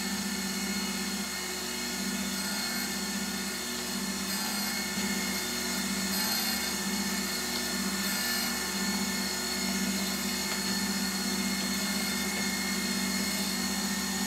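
LIP 515 horizontal-spindle surface grinder running, its wheel grinding a hardened steel parallel on a magnetic chuck while the table traverses, on a very light pass of five thousandths of a millimetre. A steady motor hum with a constant high whine and hiss.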